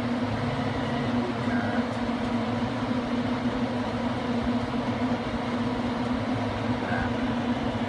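A burning wood-stove insert giving a steady hum over an even rushing noise, running without change.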